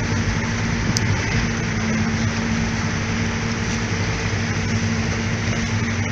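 Motorboat engine running at a steady pitch, under a constant rushing noise, with one short sharp click about a second in.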